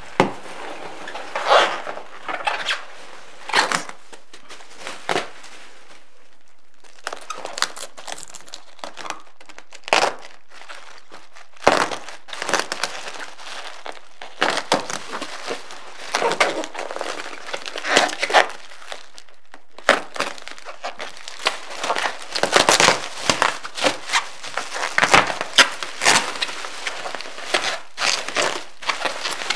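Plastic packing material crinkling and rustling as it is handled: a bag of packing fill slit open and bubble wrap pulled off a case. Irregular bursts, sparse at first and busier in the second half.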